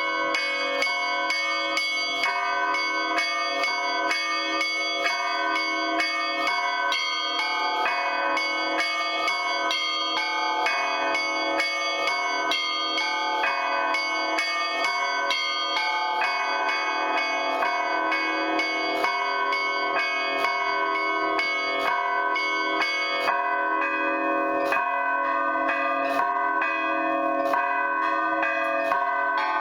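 Russian Orthodox church bell ringing (zvon) on a set of eight old bells, many of them damaged: the big bell, four middle bells and three small chiming bells. The bells are struck in a rapid, continuous rhythm, with many tones ringing over each other.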